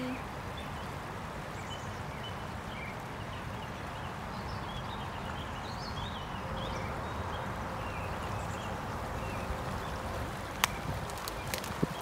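Shallow stream water running over rocks, a steady rippling flow, with faint bird chirps in the first half and a few sharp clicks near the end.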